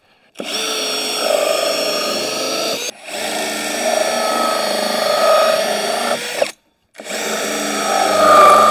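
Power drill with a hole saw cutting holes in a PVC rain gutter. The drill runs in three long stretches, stopping briefly about three seconds in and again about six and a half seconds in.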